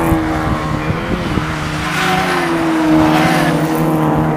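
Ford Fiesta race cars' engines running hard as several cars pass through a corner, the engine notes rising and falling in pitch as they accelerate and back off.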